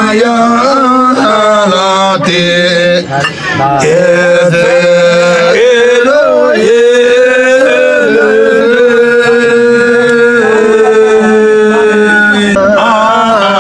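Men singing a Yolmo (Hyolmo) folk song unaccompanied, drawing the melody out in long held notes with a steadier lower pitch beneath, and a short breath break about three seconds in.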